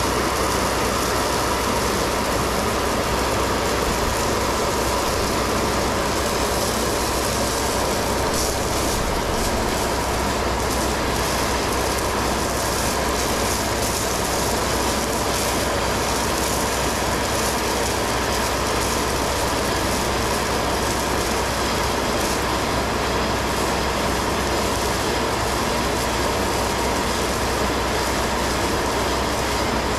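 Stone slinger truck running, its conveyor flinging 3/4-inch crushed stone onto a trail ramp. It makes a steady machine noise with a constant whine through it.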